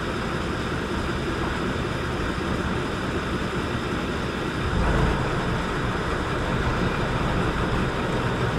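Passenger ship's engine running steadily under a wash of wind and water noise, with a deeper, louder rumble coming in about five seconds in.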